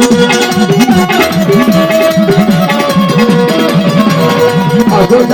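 Traditional Gujarati devotional folk music: a fast repeating drum pattern under a held melody line.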